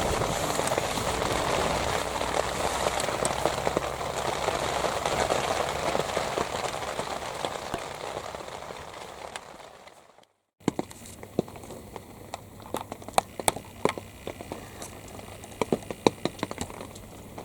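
Rain: a dense, steady patter that fades away about ten seconds in, then, after a brief gap, scattered drops tapping sharply over a soft hiss.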